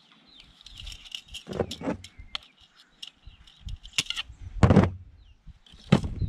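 Handling sounds of electric fence wire and pliers being worked at the spool: a string of clicks, knocks and rustles, the loudest knock a little past the middle and another near the end.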